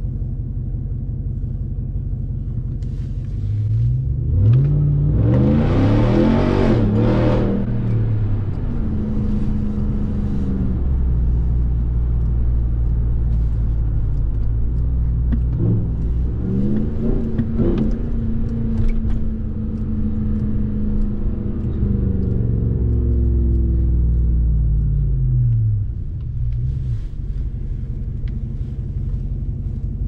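2021 Ram 1500 TRX's supercharged 6.2-litre Hemi V8 under load while driving: a hard pull about four seconds in, its pitch climbing in quick steps through upshifts, then a steady cruise. A second, shorter pull comes about halfway through, and the engine note falls away as it eases off near the end.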